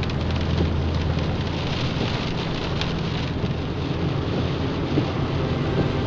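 Car driving along a road: a steady low engine and road drone under an even rushing hiss of tyres and wind.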